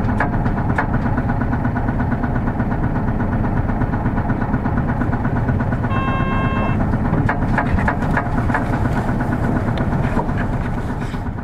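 Hino Blue Ribbon City Hybrid bus's diesel engine running steadily, heard from inside the bus, with scattered small clicks and rattles. A short electronic beep sounds about six seconds in.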